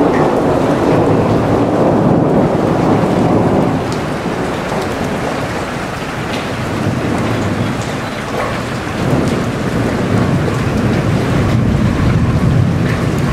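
Heavy rain pouring steadily, a dense hiss of drops. A deeper low rumble swells under it near the start and again about ten seconds in.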